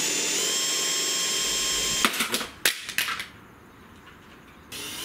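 Cordless drill running at a steady speed for about two seconds as it bores into the caravan roof's aluminium mounting rail, then a few sharp knocks.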